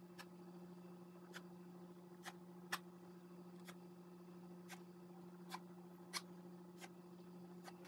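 Faint, irregular sharp ticks, about ten in all, from a notched scraper being drawn and lifted through wet wheat-starch paste and acrylic paint on paper over a silicone mat, over a steady low hum. The loudest ticks come a little under three seconds in and again just after six seconds.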